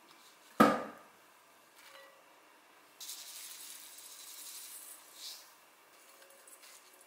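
A sharp glass-on-glass knock about half a second in, as a small glass bowl of chopped green onion is tipped against the rim of a glass mixing bowl. From about three seconds, a hissing patter for some two seconds as sesame seeds are poured onto the greens in the glass bowl, then faint rustling as they are mixed by hand.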